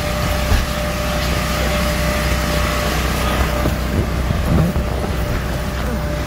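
Electric blower fan running steadily to keep an inflatable bounce house inflated: a constant low hum and rush of air with a faint steady whine.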